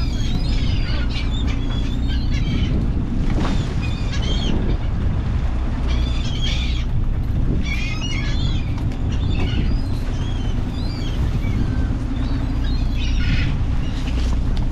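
Gulls calling in repeated clusters of short, high cries over a shrimp trawler, with the boat's engine running as a steady low drone underneath.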